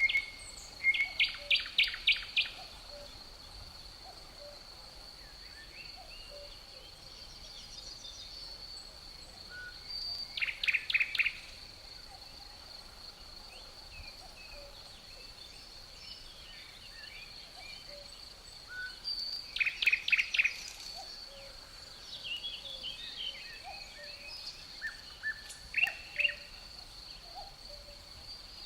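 A songbird repeats a short, quick run of chirps four times, about every nine seconds. Under it, crickets keep up a steady high-pitched trill, with fainter calls from other birds in between.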